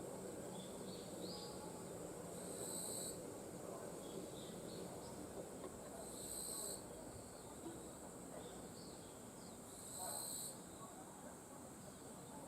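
Summer forest ambience: a steady high-pitched insect drone, with a buzzy insect call repeating about every four seconds and faint short bird chirps in between.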